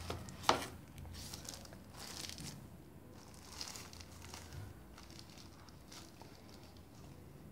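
Packaging being handled and unwrapped, crinkling and rustling in short bursts, with a sharp click about half a second in.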